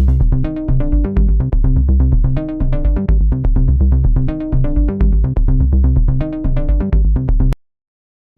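Electronic background music with a steady beat, heavy bass and repeating synthesizer notes, cutting off suddenly near the end.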